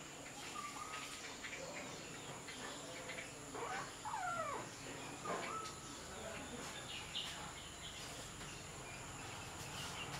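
Kittens mewing faintly as they jostle to suckle from the mother cat: a few short mews, the clearest about four seconds in.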